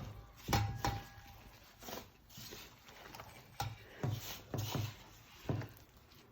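Hands kneading soft chapati dough in a bowl: a string of irregular soft thumps and squishes as the dough is pressed and turned.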